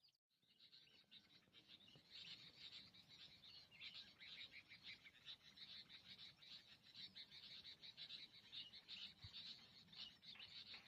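Faint, continuous chorus of rapid, high-pitched chirping calls, after a brief dropout at the very start.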